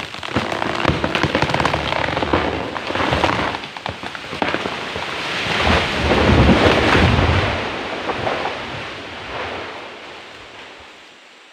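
A large tropical hardwood tree falling: wood cracking and snapping as the trunk gives way, then a long crash as the crown tears through the surrounding branches and hits the ground about six to seven seconds in, dying away over the last few seconds.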